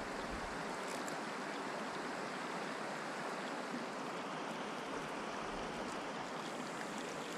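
Steady, even hiss of wind and water on a lake.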